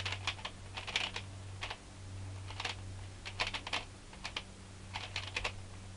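Shengshou Pyraminx being turned quickly by hand, its plastic pieces clicking in irregular quick clusters as the layers snap into place, which the owner puts down to its ball-bearing mechanism.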